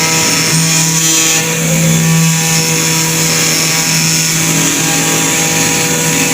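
Mini CNC milling machine running with a steady hum and a high hiss.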